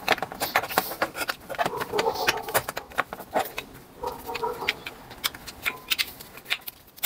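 Motorcycle rear drum-brake shoes and their return springs being fitted by hand onto the brake panel: repeated metallic clicks and clacks, with short squeaks about two seconds in and again about four seconds in.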